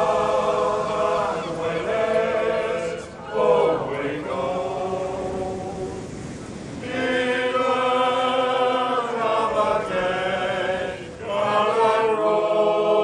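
A group of men singing together unaccompanied, in long held phrases with short breaks between the lines.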